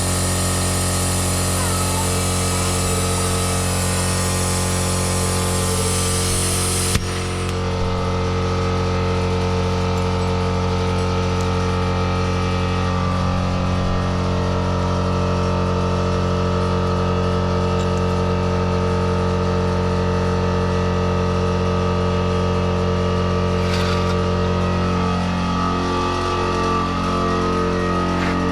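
Air compressor running steadily, with the hiss of compressed air through a pneumatic vacuum brake bleeder that stops abruptly with a click about seven seconds in as the trigger is released; the compressor runs on after.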